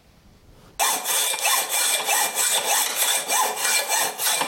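Rhythmic scraping strokes, about three a second, starting abruptly about a second in.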